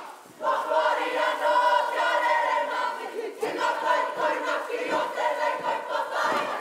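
Kapa haka group chanting loudly in unison, many voices holding lines together, coming in about half a second in, with a short break a little after three seconds.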